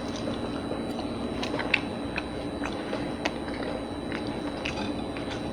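A person quietly chewing spaghetti and meatballs: scattered soft, wet mouth clicks over a steady low room hum.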